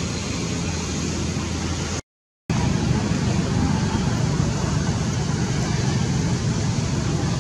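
Steady outdoor background noise with a low engine-like hum, broken by half a second of dead silence about two seconds in, then a slightly louder, noisier rumble.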